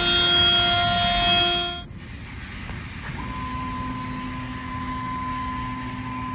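CNC router spindle cutting MDF panels, a loud steady whine that breaks off abruptly about two seconds in. Then a quieter hiss of cutting, with a lower steady whine coming in about three seconds in.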